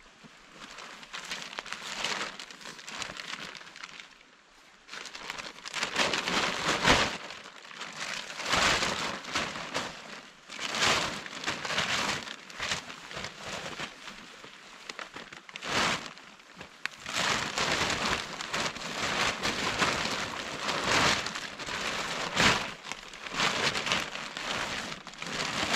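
Green nylon sheet rustling and crinkling in irregular bursts as it is pulled out of a bag, shaken open and spread on the ground.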